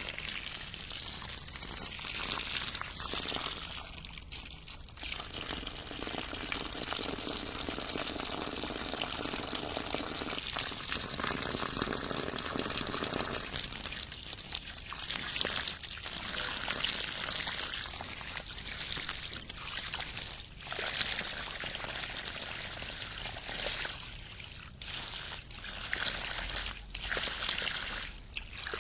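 Water trickling and rippling in a continuous flow, with several short dips in level along the way.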